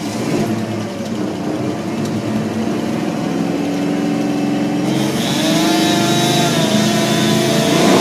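Chainsaw engine running and revving, its pitch climbing and then holding higher from about five seconds in, getting gradually louder.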